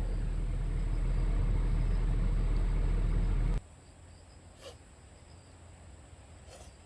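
A steady noise with a deep rumble, like wind buffeting the microphone, that cuts off abruptly partway through. It leaves a faint outdoor night background of insects, with a thin high steady trill.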